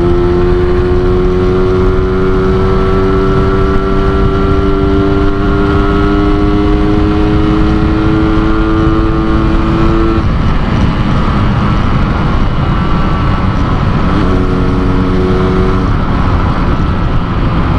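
Yamaha RX-King 135 cc two-stroke single, tuned in the Medan 'ngorok' style, running at steady throttle with its note rising slowly. About ten seconds in the engine note drops away under a steady rush, and it comes back briefly a few seconds before the end.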